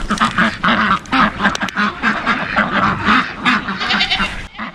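A crowd of farm animals calling over one another at feeding time: ducks quacking in quick, raspy bursts, mixed with goats bleating.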